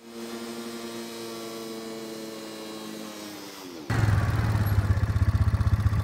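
Four-wheeler engine running, a steady hum that dips slightly in pitch; about four seconds in it jumps suddenly to a much louder, deeper rumble with a fast, even pulse.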